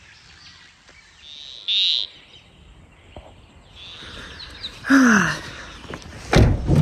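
Birds calling: a short, bright, high chirp about two seconds in and a brief falling call around five seconds. A loud low rumble starts just before the end.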